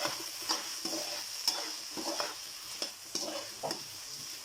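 Food frying in hot oil with a steady sizzle, while a spatula scrapes and turns it in the pan in repeated strokes about every half second.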